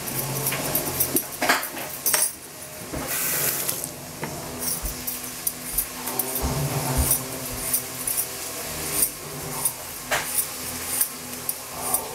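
Vegetable peeler scraping strokes along a potato over a stainless steel sink, with light clicks and clinks of metal against the steel.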